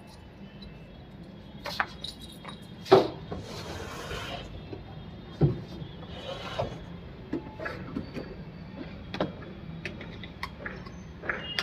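Handling noise at a washing machine: scattered knocks, clicks and rubbing, with a sharp knock about three seconds in and another about five and a half seconds in.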